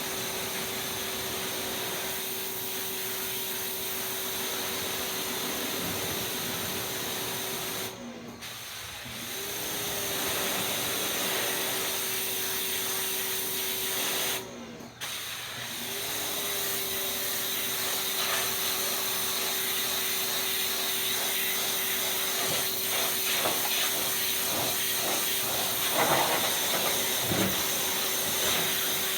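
Pressure washer spraying: a steady hiss of water jet over a steady machine hum. The spray cuts out briefly twice, about eight and fourteen seconds in, and the hum dips and comes back as it starts again.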